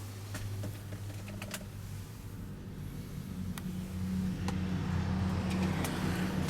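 Isuzu Elf truck's 3,630 cc engine idling with a steady low hum that grows louder about four seconds in, with several sharp clicks over it.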